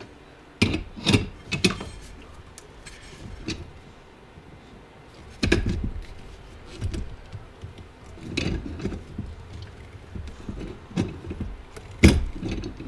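Irregular metallic clicks and clanks from a three-jaw bearing puller being worked on a hot tub pump motor shaft as its forcing screw is turned with a hand tool, drawing the motor bearing off. The loudest knocks come about five seconds in and again near the end.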